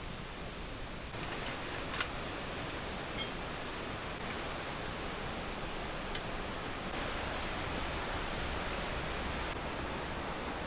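A steady rushing noise, with three short sharp clicks spread through it.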